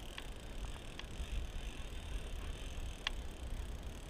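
Fishing reel being cranked to bring in a hooked trout: a steady mechanical gear whir with a few light clicks, over a low rumble.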